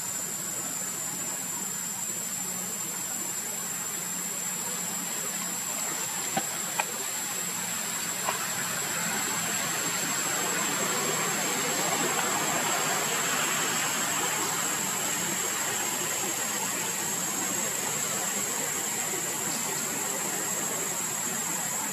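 Steady outdoor background hiss with a thin, constant high whine. There are a few faint clicks about six to eight seconds in, and the hiss swells a little about halfway through. No monkey calls are heard.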